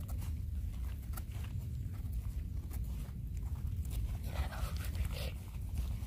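Strong wind buffeting the microphone as a steady low rumble, with scattered ticks and crackles of footsteps in forest litter and a brief rustle about four and a half seconds in.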